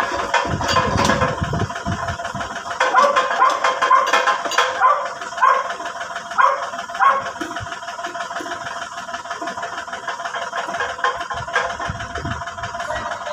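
A dog barking repeatedly over the steady running of a backhoe's engine; the barking stops about seven seconds in, leaving the engine running.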